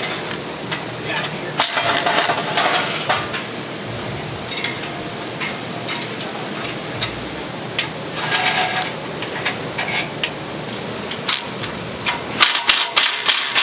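Cordless Milwaukee driver running out exhaust mounting bolts in two short bursts, with metal clinks from the socket, bolts and exhaust parts, and a quick run of clicks near the end.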